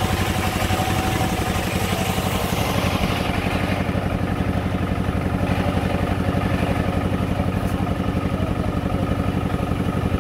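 A saw mill's engine running steadily with a fast, even pulse. A higher hiss fades out about three to four seconds in.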